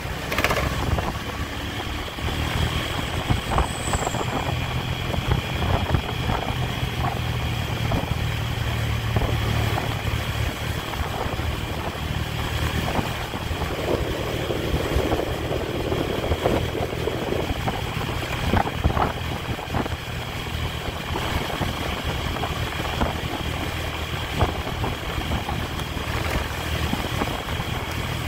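Honda Tiger's single-cylinder engine running steadily while the motorcycle rides along, with a steady rush of wind and road noise on the microphone.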